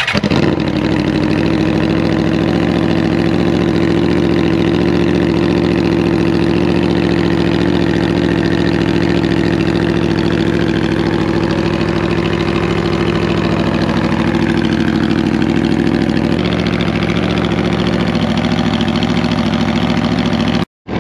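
2014 Aprilia RSV4's V4 engine, fitted with a full aftermarket exhaust, idling steadily and loudly just after being started. The sound drops out for a split second near the end.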